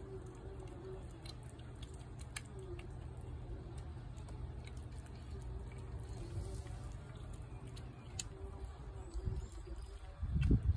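Cat eating wet food from a plate, with scattered small chewing clicks, over a steady low rumble and a faint wavering hum. A louder low thump comes near the end.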